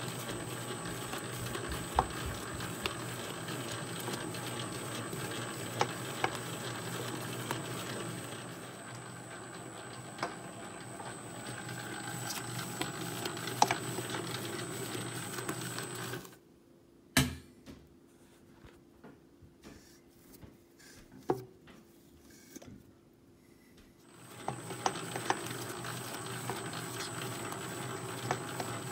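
FAMAG spiral dough mixer running steadily as its spiral hook kneads pizza dough in the steel bowl, with a steady motor hum and occasional light knocks. A little past the middle the running sound drops away for several seconds, leaving only faint scattered clicks, then returns.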